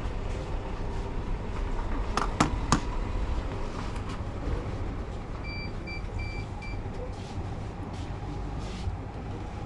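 Shop checkout beeping: four short high electronic beeps about halfway through, over a steady low hum, with two sharp clicks a couple of seconds in.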